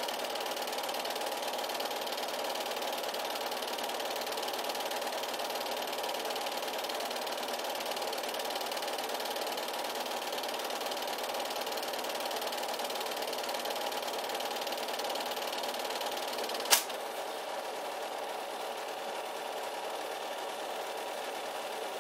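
8mm film projector running with a steady mechanical whir and clatter. A single sharp click about three-quarters through, after which it runs a little quieter.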